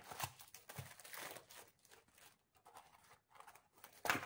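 Packaging being handled and opened, crinkling and tearing faintly in scattered crackles, with a sharper one near the end.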